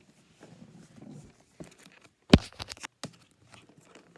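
Small plastic toy pieces being handled: light rustling and scattered clicks, with one sharp knock a little past halfway followed by a quick run of smaller clicks.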